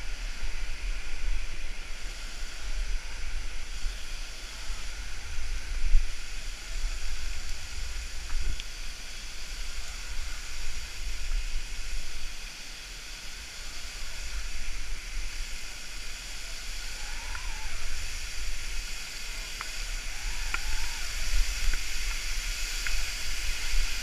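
Waterfall pouring with a steady rushing hiss, with low buffeting rumble on the microphone and a few faint clicks.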